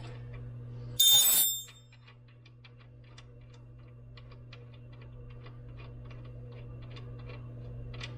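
A sharp metallic clank with a short ring about a second in, followed by a long run of light, irregular clicks, over a steady low electrical hum.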